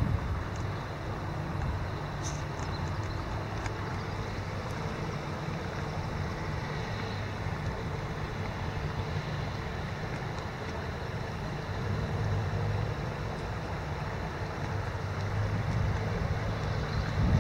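Steady rush of a shallow, stony river, with wind buffeting the microphone in an uneven low rumble.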